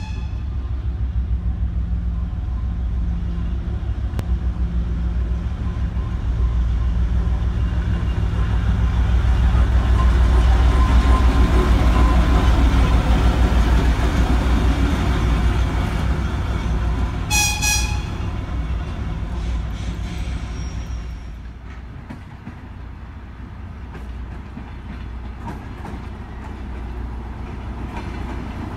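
An LDZ 2M62U double-section diesel locomotive, with two-stroke diesel engines, passes close by hauling freight wagons. Its heavy engine rumble swells to a peak about halfway through and then fades. A single short horn toot sounds about two-thirds of the way in.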